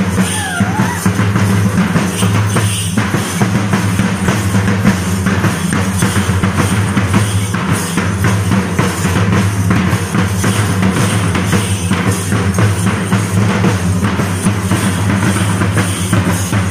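Fast, dense ensemble drumming for a Kerala Thira kali dance, continuous strokes with no break. A brief sliding tone falls in pitch about half a second in.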